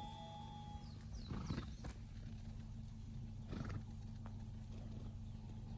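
A steady low hum with a few short descending bird chirps and two brief animal calls, one about a second and a half in and one past the middle.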